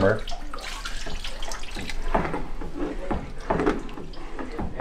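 Broth sloshing and splashing in a large stockpot as a metal cup scoops and pours it, in short irregular strokes.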